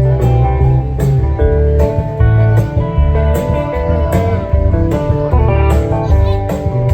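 Acoustic string band playing an instrumental passage: plucked acoustic guitar with a steady bass line and a picked melody on top, at a steady beat.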